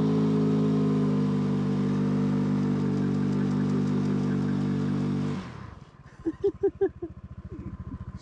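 A small rented scooter's engine held at high revs for about five seconds during a burnout attempt, then dropping suddenly back to idle.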